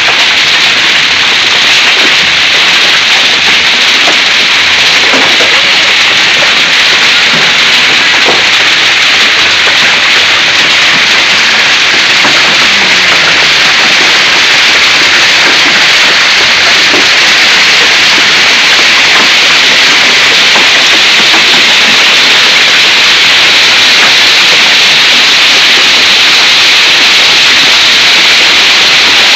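Heavy hail mixed with rain pelting pavement, lawn and roofs: a loud, steady hiss.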